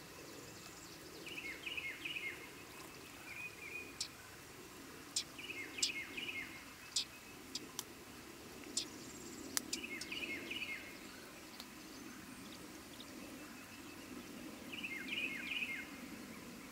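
Tree swallow twittering: about five short bursts of three or four quick chirps with falling slurs, with a few sharp ticks between them over a faint low background hum.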